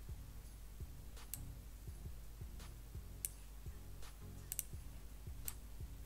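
Metal tips of a 5 mm circular knitting needle clicking against each other as stitches are knit: about five sharp, light clicks, two of them in quick succession about halfway through, over faint background music.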